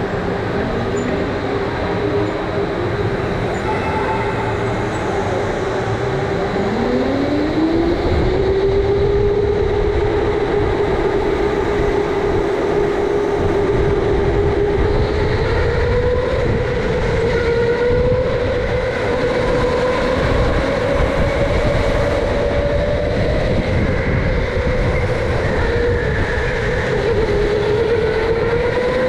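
Electric go-kart motor whining under a low rumble of hard tyres on a concrete floor. About six seconds in the whine climbs steeply in pitch as the kart accelerates, then holds high with small dips and rises through the corners.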